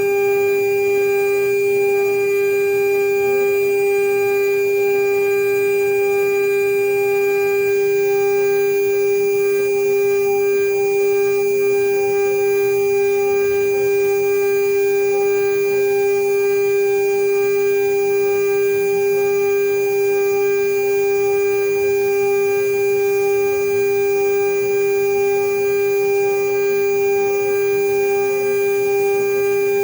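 CNC router spindle running at constant speed with a steady, high-pitched whine that holds one pitch throughout.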